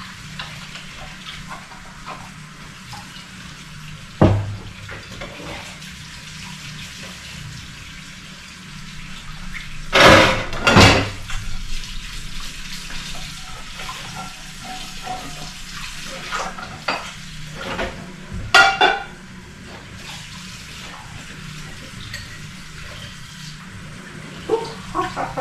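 Tap water running into a kitchen sink while dishes, including food processor parts, are washed by hand, with a few knocks and clatters of dishware: one about 4 seconds in, two loud ones around 10 to 11 seconds, and another near 19 seconds.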